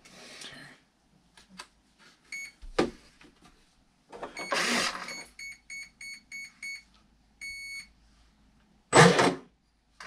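Electronic beeps as the RC boat's batteries are connected: a quick pair, then a fast run of short beeps at one pitch and a single longer beep, the power-up tones of the boat's electronics. Knocks and rustles of handling come between them, the loudest near the end.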